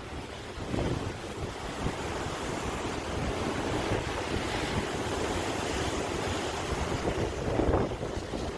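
Ocean surf washing continuously, swelling louder about a second in and again near the end as waves break. Wind buffets the microphone with a low rumble.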